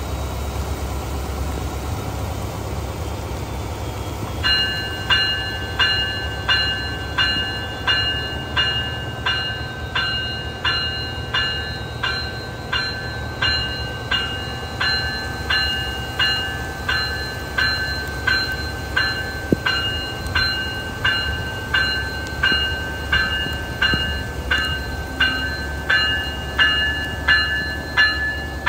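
Bell of an Amtrak ALC-42 Charger locomotive starts ringing about four seconds in, with steady, evenly spaced strikes about one and a half a second, the warning rung as the train prepares to depart. Under it runs a steady low rumble with heavy rain.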